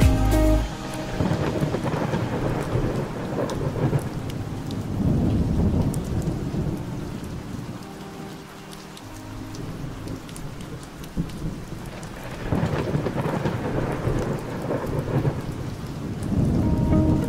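Steady rain with rolling thunder that swells and fades several times, dropping to a quieter lull around the middle before building again.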